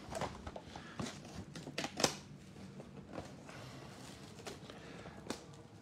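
Trading cards being flipped through by hand: faint, irregular clicks and rustles of card stock, the sharpest about two seconds in.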